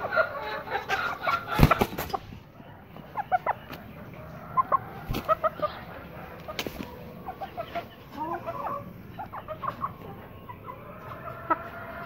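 Several chickens clucking in short, scattered calls. A few sharp knocks cut through, the loudest about one and a half seconds in and another about five seconds in.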